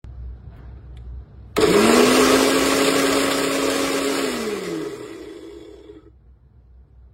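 A small electric motor switched on, spinning up quickly to a steady whirring run of about two and a half seconds, then switched off and winding down with a falling pitch.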